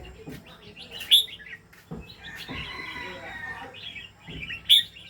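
Pet songbird chirping and warbling: two loud sharp chirps, about a second in and near the end, with a soft run of rapid high notes in between.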